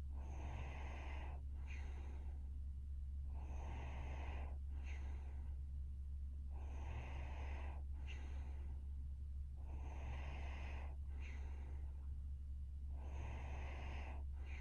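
A sleeping young woman snoring softly: about four slow breaths, each a longer rasping sound followed by a shorter one, coming roughly every three seconds. A steady low hum runs underneath.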